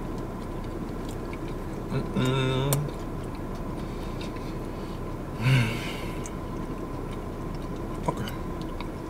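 A man chewing a mouthful of Jamaican patty, with small wet mouth clicks, a hummed "mmm" of enjoyment about two seconds in and a short breathy vocal sound around five and a half seconds in.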